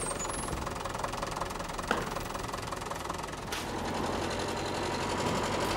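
Motor vehicle engine running steadily, with a sharp click about two seconds in. Past the middle the sound changes and a faint steady whine comes in.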